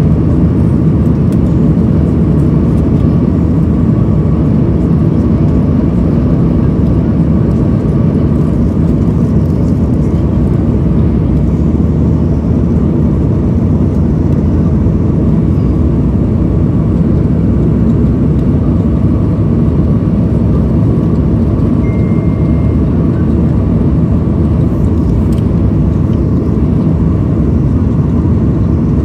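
Cabin noise of a Boeing 737 MAX 8 on the runway: its CFM LEAP-1B engines and the rolling of the wheels make a loud, steady low rumble heard from inside the cabin.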